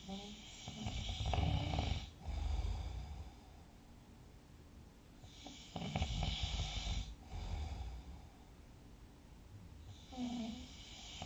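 A sleeping person snoring: three snoring breaths about five seconds apart, each a low rumble with a breathy hiss over it, with quiet breathing between them.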